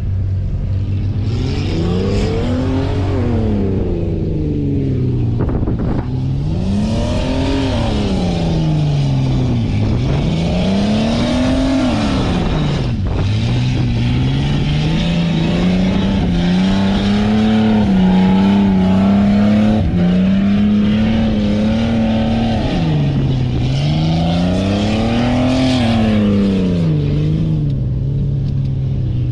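Off-road vehicle engine driving over sand dunes, its revs rising and falling several times and held higher for a few seconds in the middle, over a steady low drone and a rushing noise.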